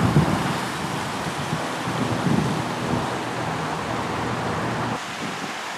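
A small waterfall rushing steadily, a constant splashing hiss of falling water.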